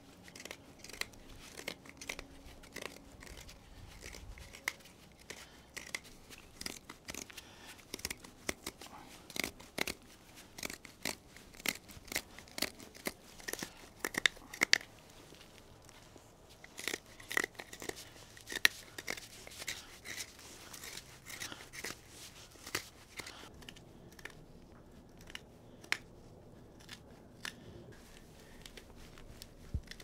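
Victorinox Huntsman Swiss Army knife blade carving inside a hole bored into a small log to widen it: irregular quick scrapes and clicks as the blade cuts and tears out wood fibres.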